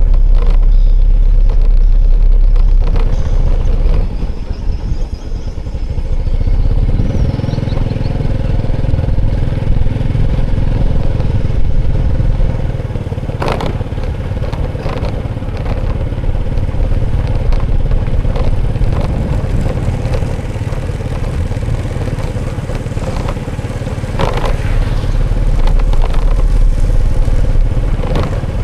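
Motorcycle engine running with a steady rumble and road noise, with a few sharp clicks and rattles, and heavy low buffeting at the start and again near the end.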